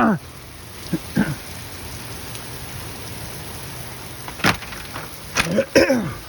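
Heavy thunderstorm rain pouring down steadily. A few brief louder sounds break through: one about a second in, a sharp knock partway through, and a short cluster near the end.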